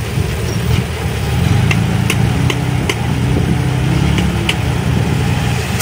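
Dump truck's diesel engine running steadily while the tipper bed is raised and the load slides off, with a few sharp clicks scattered through it.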